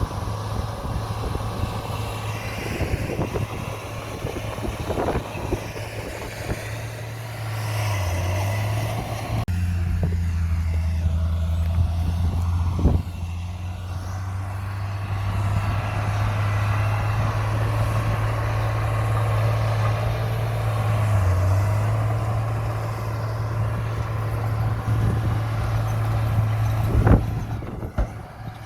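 Heavy diesel earthmoving machinery running steadily under load, a low engine drone that deepens and grows louder about a third of the way in. A few sharp metallic knocks stand out, one near the middle and one near the end.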